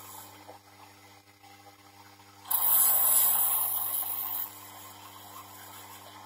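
Small bench lathe's motor running with a steady hum. About two and a half seconds in, the tool bites into the spinning brass rod for about two seconds, a loud hissing scrape of metal being cut, then the lathe runs on alone.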